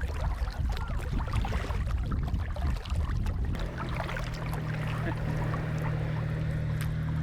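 Kayak on the water: paddle splashes and water trickling with low rumble on the microphone. About three and a half seconds in, a steady low hum sets in and holds.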